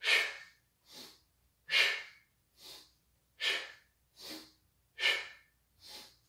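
A man breathing hard through barbell rows: four loud, sharp breaths about every second and a half, each followed by a softer breath, in time with the reps.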